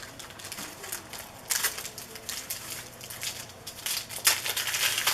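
Trading card packs and cards being handled: crinkling, crackly rustling of wrappers, louder in two bursts, around a second and a half in and again near the end.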